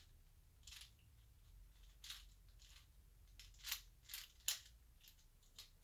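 Plastic 4x4 Rubik's cube being turned by hand: a series of short, irregular clicks and scrapes as the layers are rotated, the loudest two near the middle.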